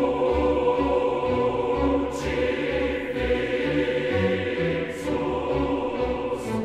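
Background music: a choir singing sustained chords over a slowly moving low line.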